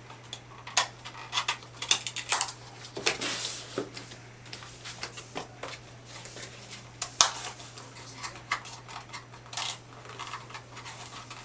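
Cardboard display pieces being handled, folded and tucked into place by hand: irregular clicks, snaps and short rustling scrapes of cardboard.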